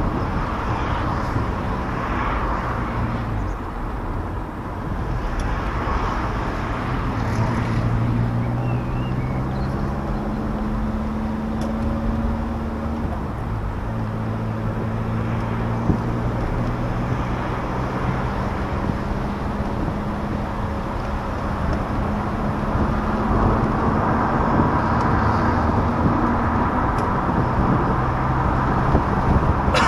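1994 Saab 900 S Cabriolet's inline four-cylinder engine running under way with the top down, mixed with steady wind and tyre noise. The engine note shifts in pitch a few times.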